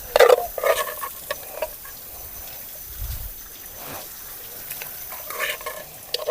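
Rice being handled and stirred in a cooking pot: quick, irregular rustling and scraping strokes. They come thickest in the first couple of seconds and again about five and a half seconds in.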